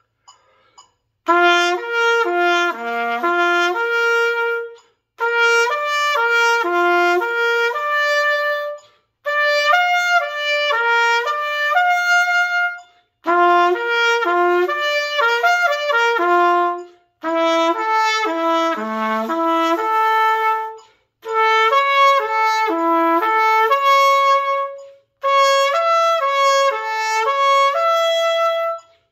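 Solo trumpet playing a long tone exercise: seven phrases of about four seconds each, starting about a second in, each a run of connected notes stepping up and down, with a short breath between phrases.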